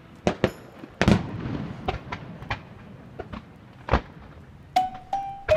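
Aerial fireworks shells bursting: a series of sharp bangs spaced about half a second to a second apart, the loudest about a second in with a rumbling echo trailing after it.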